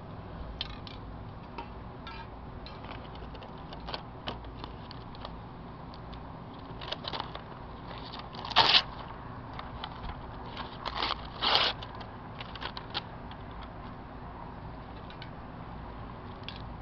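Light clicks and rustling from materials being handled, with two short, louder rustling bursts about halfway through.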